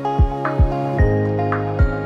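Background music: sustained synth-like chords over a deep kick-drum beat.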